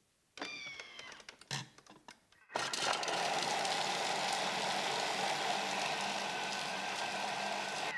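Thermomix TM5 food processor with its blade chopping aromatics at speed 7: a loud steady whirring and chopping noise that starts about two and a half seconds in. Before it come a brief falling whine and a few clicks as the machine is set.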